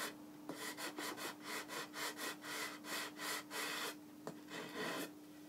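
Sandpaper on a hand sanding block rubbed back and forth along a mahogany guitar neck, about three strokes a second, shaping the neck grip. The strokes stop about four seconds in, with one last stroke just before the end.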